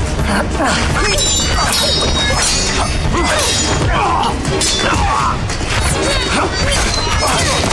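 Action-scene film soundtrack: music under a rapid string of crashes and thuds, with cries rising and falling in pitch over them.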